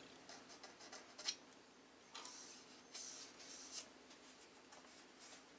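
Near silence, with a few faint, short scrapes or rustles of small handling noise.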